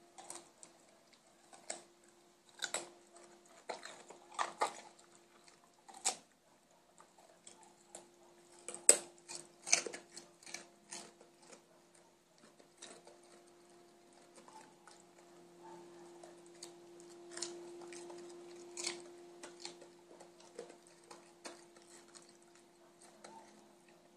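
Doberman chewing raw carrot: irregular crisp crunches, dense and loudest in the first half, then only now and then, over a steady low hum.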